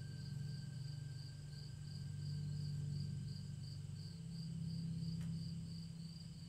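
Ambient meditation music: a low sustained drone that shifts slightly about four seconds in, with a high chirping that pulses about three times a second over it.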